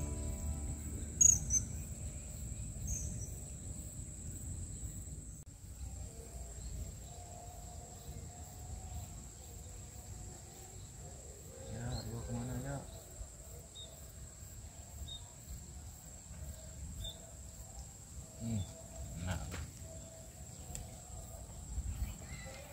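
Insects droning steadily on one high pitch over a low background rumble, with a few faint brief sounds about halfway through and again near the end.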